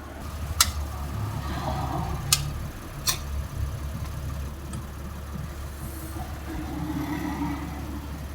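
Toyota Crown Athlete (200 series) V6 idling while sharp clicks sound from the suspension, about four at irregular intervals. This is the abnormal noise the car makes when its suspension is under load.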